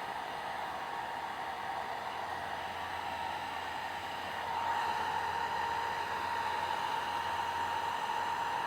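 Foldable hair dryer running steadily, switched on: a blowing hiss with a steady whine through it. It gets a little louder about halfway through.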